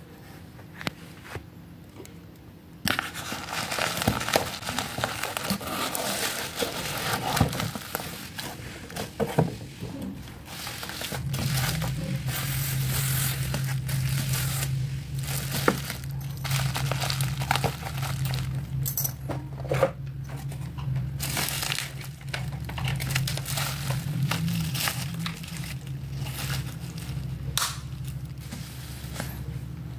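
Bubble wrap and cardboard packaging being handled and unwrapped: irregular crinkling and crackling plastic with rustling, starting a few seconds in. A low steady hum joins about a third of the way through.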